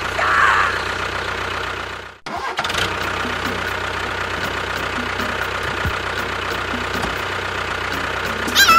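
Tractor engine running steadily. It cuts out abruptly about two seconds in and picks up again at once. Near the end there is a short high-pitched cry that falls in pitch.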